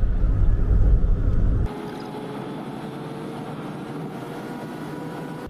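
Wind buffeting the microphone, a loud, gusty low rumble that cuts off abruptly about a second and a half in. After it comes a quieter steady hiss with a few faint held tones.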